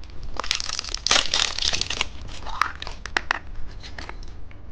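Wrapper of a candy surprise egg crinkling and tearing as it is opened, a dense rustle for the first two seconds or so, then scattered small clicks and crackles as it is handled.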